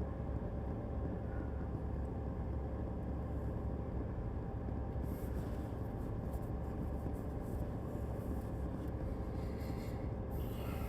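Steady low rumble, with faint rubbing or scraping noises about five seconds in and again near the end.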